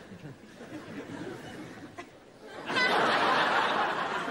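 Studio audience laughing: scattered chuckles and murmur, then a loud wave of laughter breaks out about two-thirds of the way in and carries on.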